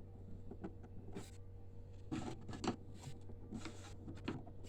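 Scattered small clicks and brief scrapes of screws and plastic printer parts being handled during disassembly, over a steady low hum.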